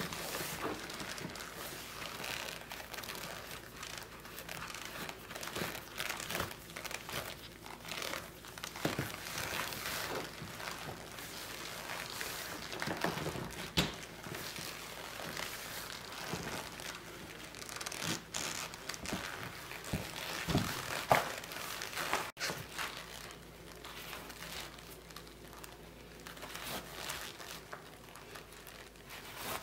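Stiff leather rustling and creaking in irregular bursts as a tall Steel Ranger 20-eyelet leather boot is pulled on and its laces tugged, with one sharper knock about two-thirds of the way through.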